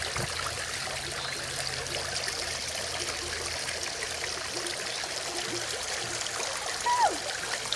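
Fountain water running steadily into a shallow pool, a continuous trickling rush. Near the end a brief vocal sound glides downward.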